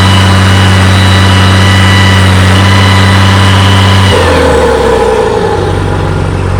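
Valtra 1880 tractor's diesel engine running at steady high revs with a deep, throaty sound and a whistle over it. About four seconds in, the revs drop suddenly and the whistle fades.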